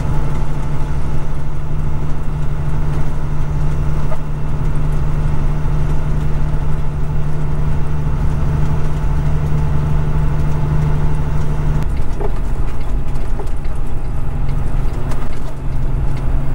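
Kenworth road train's diesel engine running steadily under way, with road noise. Its note drops about twelve seconds in.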